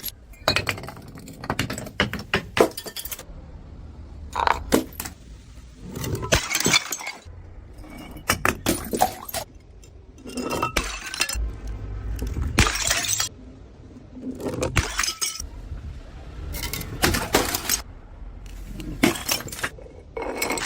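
Glass bottles breaking one after another, each a sharp smash followed by clinking shards, about every two seconds.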